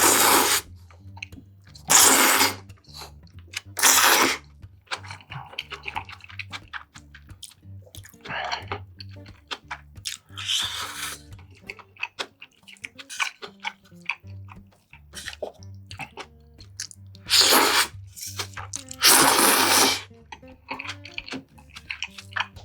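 Close-miked eating sounds: chewing and small mouth clicks, with five loud, brief noisy bursts of eating. Soft background music with a low bass line runs under it.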